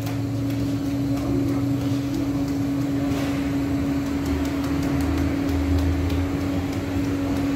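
Steady mechanical hum with one constant tone and a low rumble underneath, with a few faint light taps over it.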